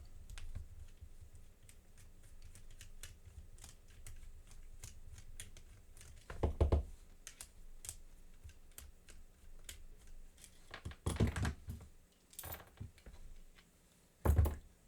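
Small metal clicks and taps of a screwdriver and padlock parts being handled while an American Lock 1100 padlock is taken apart, with three heavier thumps: one about halfway, one about two-thirds in, one near the end.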